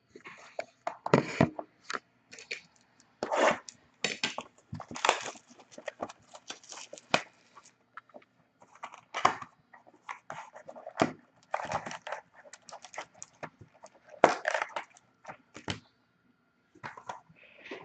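Irregular crinkling, tearing and rustling of plastic wrap and cardboard as a sealed box of hockey cards is unwrapped and opened, in short bursts with brief pauses.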